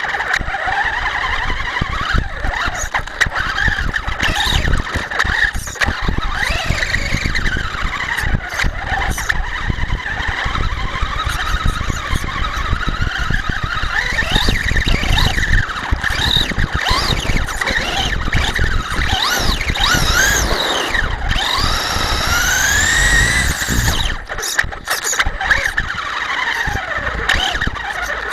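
Electric Traxxas Stampede RC truck's motor and gears whining, the whine rising and falling in pitch again and again as the throttle opens and closes, over a rough rumble and knocks from the tyres on the ground.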